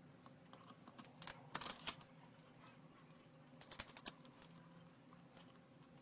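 Faint small clicks and rattles of hands handling the wires and capacitor on a ceiling fan motor, in two short clusters about one and a half and four seconds in, with near silence between.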